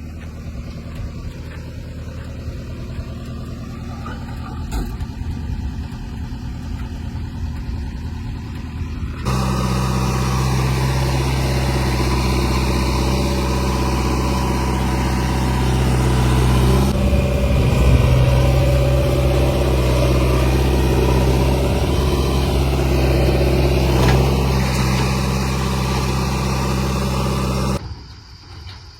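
Heavy diesel engine running steadily with a deep hum. It jumps suddenly louder about a third of the way in, then drops off abruptly near the end.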